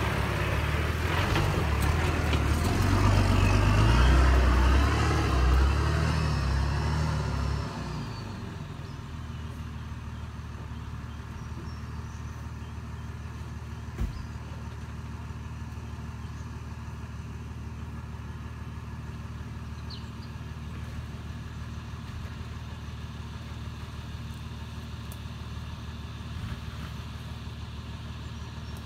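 Off-road four-wheel-drive engine working hard and loud, its revs rising and falling for about seven seconds, then dropping suddenly to a steady idle. A single sharp knock comes near the middle.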